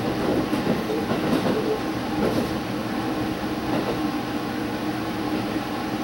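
Diesel limited express train heard from inside the front car behind the cab, engine running and wheels rolling steadily over the rails as it pulls out through the station tracks, with a few faint wheel clicks over rail joints in the first second and a half.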